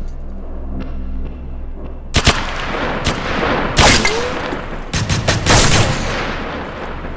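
Rifle gunfire, added as edited-in sound effects for airsoft guns: a few single shots about two seconds in, then rapid bursts with echo until about six seconds in, over background music.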